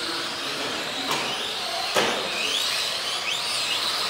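Electric motors of radio-controlled Tamiya semi trucks whining, several times rising in pitch as the trucks speed up, over a steady hiss. A sharp knock about two seconds in.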